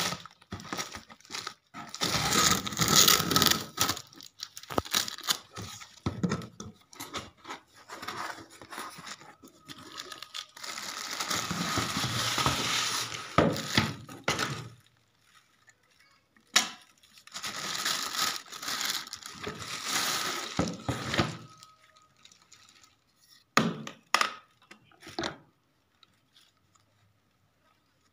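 Unboxing sounds: packing tape ripping off a cardboard box and cardboard rustling, then plastic wrap crinkling and tearing as a plastic spin-mop bucket is unwrapped. These come in three long rough stretches, with short clicks and knocks of handled plastic between them.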